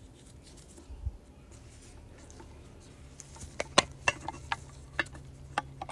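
Sharp plastic-and-metal clicks and taps from hands working the wiring harness and connector, coming in a quick irregular string over the last few seconds after a quieter start with one soft thump.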